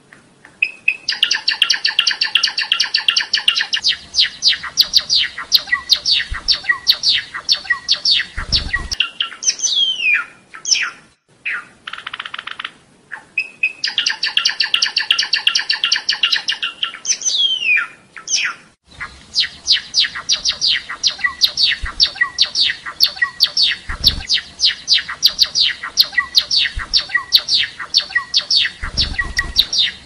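Java sparrow singing: long runs of rapid, sharp clicking notes, several a second, broken by a couple of short pauses, with a few sweeping whistled notes mixed in.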